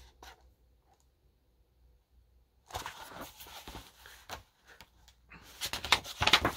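Hardcover picture book being handled, with paper rustling and light knocks, in two bursts. The first starts after about two and a half seconds of near silence, and the second, louder one comes near the end.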